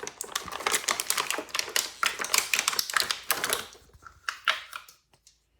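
Rapid clicking and tapping of hard plastic doll-furniture pieces and their packaging being handled. It thins to a few scattered clicks about four seconds in and stops near the end.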